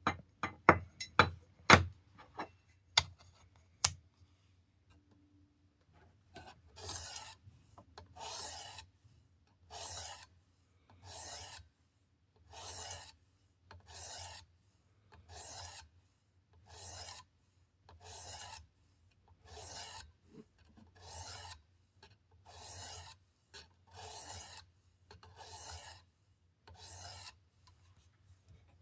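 A 600-grit sharpening stone on a Work Sharp Precision sharpener rasping along a knife blade in steady, even strokes, about one every second and a half. A few sharp clicks come in the first few seconds, as the new stone is fitted.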